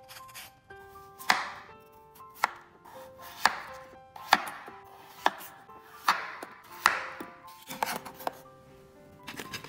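Kitchen knife slicing raw peeled potatoes into chunks on a wooden cutting board. There are about ten cuts, roughly one a second, each a short slicing hiss ending in a sharp knock of the blade on the board. Soft background music plays underneath.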